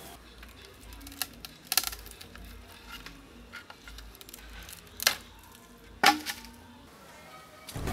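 A few sharp knocks and clicks at irregular intervals, the loudest two about five and six seconds in, over a faint low rumble.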